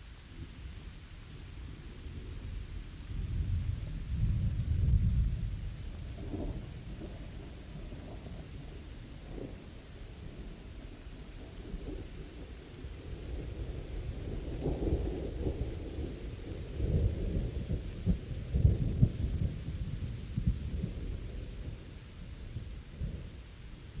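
Steady rain with rolling thunder. The low rumble swells a few seconds in, then again for longer through the second half.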